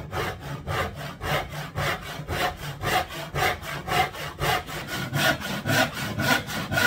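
Handsaw cutting across an old, dense hardwood floorboard in quick, even strokes, about four a second.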